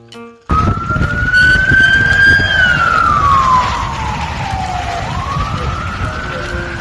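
Siren wailing, starting suddenly about half a second in: one slow rising and falling tone over a low rumble.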